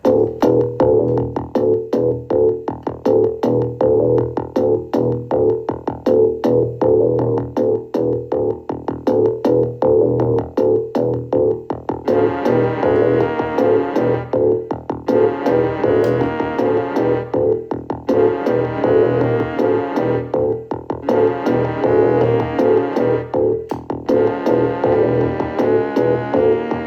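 Music with a steady, fast beat. About twelve seconds in, a brighter, higher layer joins in phrases of roughly two seconds, separated by short breaks.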